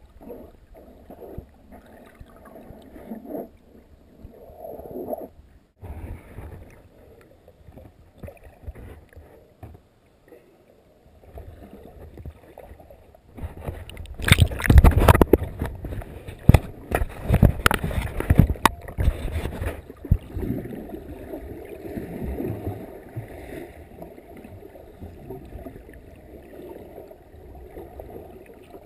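Water sloshing and splashing around a camera held at the surface while snorkeling, heard from half in and half out of the water. A run of loud splashes and knocks comes about halfway through, followed by a softer gurgling wash.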